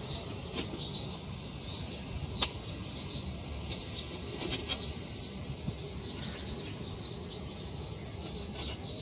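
Rustling and a few light taps as fingers handle mud-caked plastic toy animals on a plastic tray, over steady low background noise.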